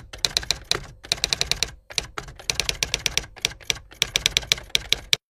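Typewriter typing sound effect: quick runs of key clacks with short pauses between them, as text is typed out letter by letter. It cuts off abruptly near the end.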